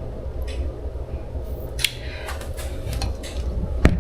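A few light clicks and knocks, the last and loudest just before the end, over a steady low hum.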